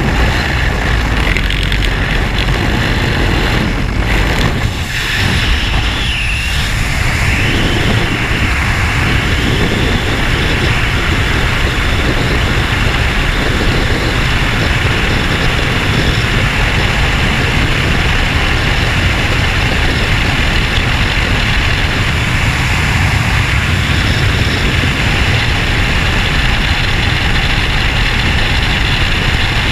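Freefall wind rushing loudly and steadily over a skydiver's helmet-mounted camera microphone. In the first few seconds the open door of the jump plane is heard, and there is a brief dip about five seconds in as the jumpers leave the aircraft.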